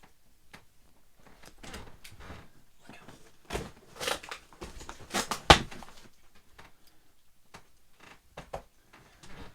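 A package being opened by hand: a series of knocks, scrapes and rustles, the loudest a few sharp knocks about three and a half to five and a half seconds in.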